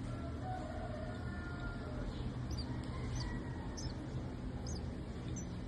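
A rescued nestling bird giving short, high, falling cheeps, about one every second, starting a couple of seconds in, over a steady low hum.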